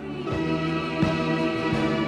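Background music starting up: held chords with a few soft beats.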